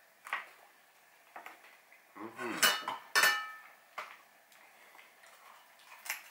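Metal cutlery (a fork and knife) clinking and clattering against each other and the plate, with two loud ringing clanks a little past two and a half and about three seconds in, and lighter taps before and after.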